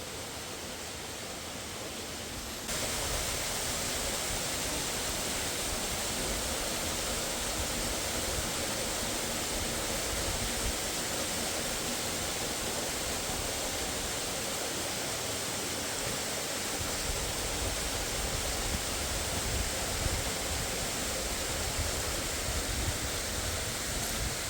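Rushing river water, a steady even roar that gets louder about three seconds in.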